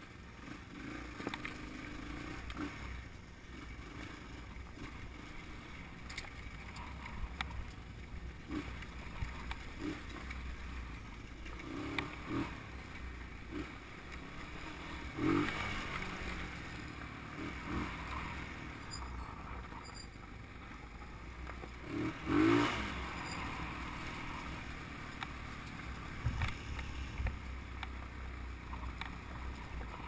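Off-road motorcycle engine running at low speed along a rocky trail, with short knocks as the bike jolts over stones, the two loudest about halfway and about three quarters of the way through.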